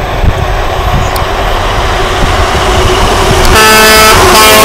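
Grain truck approaching on the highway, its engine and tyre noise growing louder, then its horn blowing twice near the end, the second blast close on the first.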